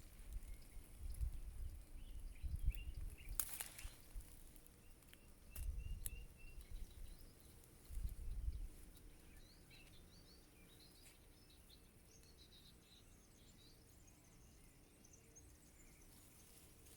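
Small birds chirping and singing faintly in short scattered notes, with a sharp click about three and a half seconds in. Low rumbling bursts, likely wind buffeting the microphone, come and go during the first half and are the loudest sound.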